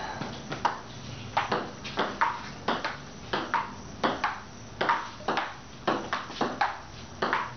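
Table tennis rally: the celluloid ball clicks sharply as it bounces on the table and is struck by the rubber paddles, a steady run of about two to three ticks a second.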